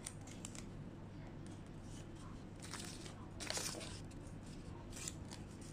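Sheets of white paper rustling and crinkling as they are handled, in a few short bursts, the loudest about three and a half seconds in.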